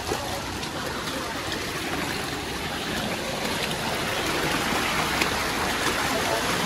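Running water, a steady even rush like a stream or small waterfall.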